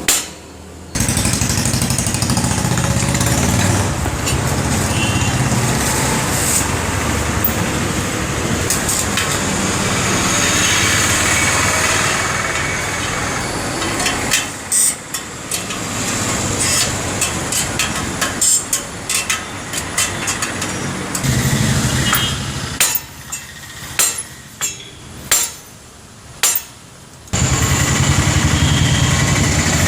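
Workshop noise: a motor or engine runs steadily with a low hum. About halfway through, a run of sharp metal knocks and clinks takes over, and steady engine noise returns near the end.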